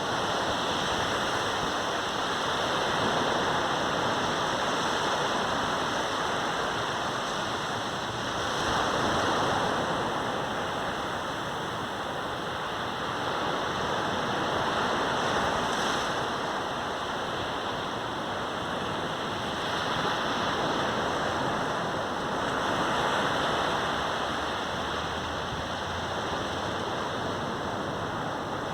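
Sea surf on a beach: waves breaking and washing up in a continuous rush, swelling every few seconds as each wave comes in.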